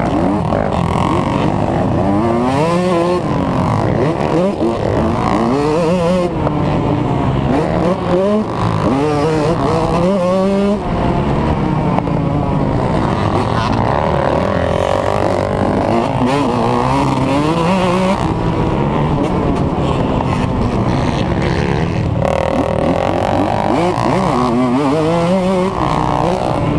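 Motocross dirt bike engine heard close up from the rider's own bike, its pitch rising and falling over and over as it is revved up and backed off around the track.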